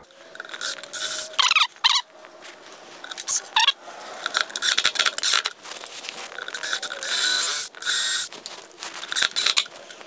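Cordless drill driving screws into wood to mount a cabinet latch, in several short runs, the longest and loudest about seven seconds in.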